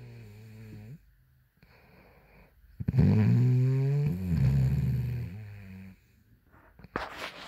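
A woman snoring: one snore trails off in the first second, then after a pause a loud, low-pitched snore lasts about three seconds. Near the end a brief rough noise breaks in.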